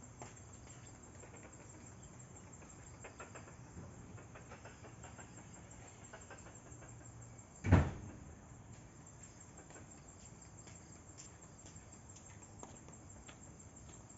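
A single heavy thump a little past halfway through, over a faint steady background with scattered soft ticks.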